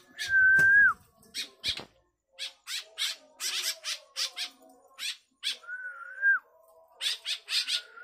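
Birds calling: a clear whistled note held for under a second and dropping at its end comes twice, about half a second in and again near six seconds, among a run of many short, sharp high-pitched chirps.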